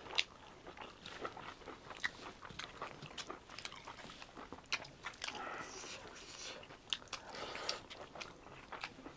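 A person chewing a mouthful of pork curry and rice close to the microphone, with soft scattered mouth clicks and smacks.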